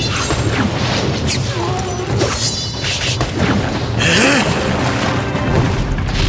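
Dramatic fight-scene music layered with booming impact effects, with a loud crash about four seconds in.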